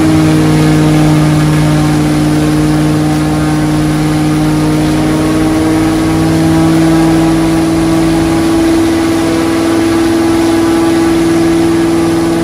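Warmed-up race-derived piston engine of a bush plane running at high throttle, its four-blade propeller turning: a loud, steady drone whose pitch creeps up slightly about halfway through.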